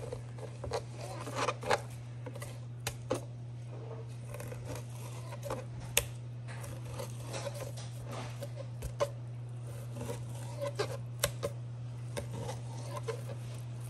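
Scattered clicks, taps and scrapes of kitchen tools as a freshly caught king salmon is worked on, over a steady low hum.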